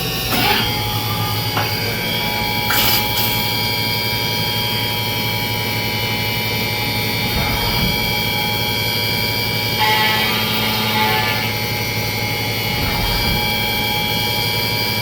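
CNC milling machine cutting billet aluminum: a steady spindle whine with several held tones over the machine's running noise. The tone shifts about a second in and again near ten seconds in.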